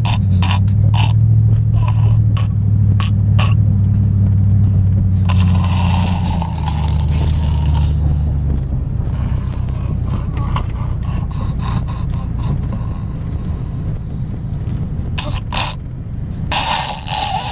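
A sleeping child snoring hard in a moving car: long, rasping snore breaths, one about five seconds in and another near the end, over the steady hum of the car's engine and road noise.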